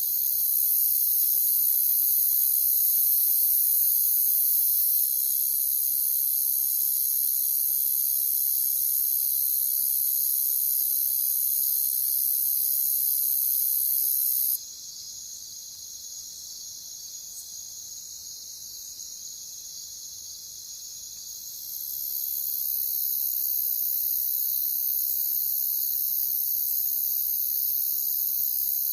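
A chorus of crickets trilling steadily and high-pitched. The loudest, highest layer of the chorus stops suddenly about halfway through, leaving a quieter trill, then swells back in about seven seconds later.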